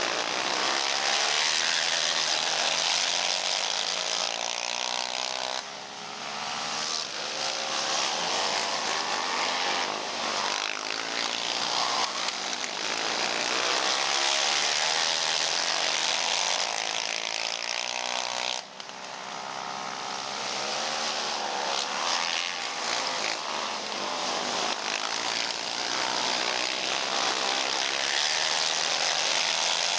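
Several racing ATV engines revving hard around a dirt oval, their pitch rising and falling as they accelerate and back off through the turns. The sound drops away briefly twice, about thirteen seconds apart, then builds back up.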